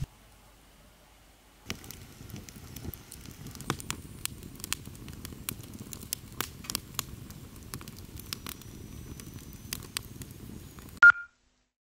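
Wood fire crackling and popping in a steel fire pit: a low rumble of flames under many sharp irregular snaps, starting about two seconds in. Near the end there is a brief loud ping.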